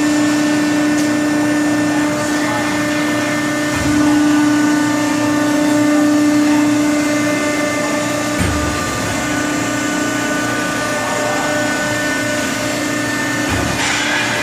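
Hydraulic power unit of a 300-ton Cincinnati 300H press brake, its 40 HP electric motor and pump running at idle: a steady pitched whine with higher overtones. Three dull low thumps come at intervals of about four to five seconds.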